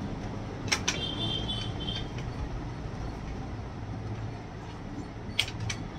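Light clicks of laptop parts and tools being handled during reassembly: two sharp clicks about a second in and two more near the end, with a faint high squeak between the first clicks, over a steady low background rumble.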